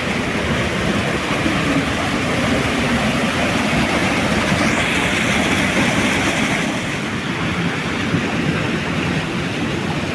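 Waterfall with the steady rush of falling water, an even wash of noise with no breaks.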